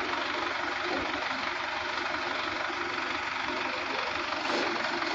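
JCB 3DX backhoe loader's diesel engine idling steadily, a dense even running sound.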